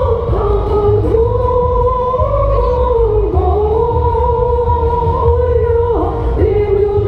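Music with a high singing voice holding long notes that dip and slide between them, over a heavy low bass.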